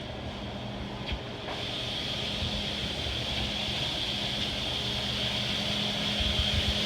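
A machine running steadily, with a low hum under a hiss that grows louder about a second and a half in.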